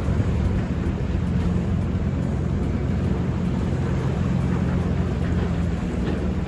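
An engine running steadily with a low hum, with wind blowing across the microphone.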